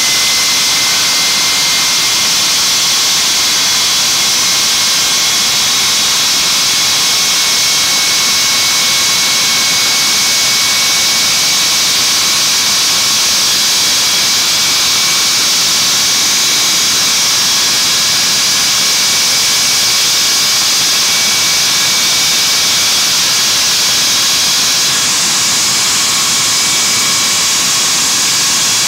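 Ilyushin Il-86's Kuznetsov NK-86 turbofan engines running on a ground run: a loud, steady jet whine over a strong hiss. The main whine rises slightly in pitch over the first couple of seconds, then holds steady.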